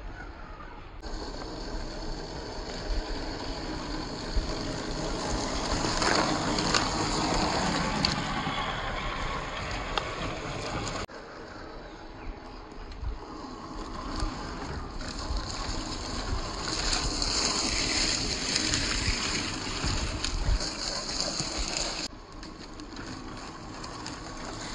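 Location sound of RC rock crawlers driving over a rocky, leaf-strewn trail: tires scrabbling and crunching over rocks and dry leaves, with scattered knocks. The sound changes abruptly three times where the footage cuts.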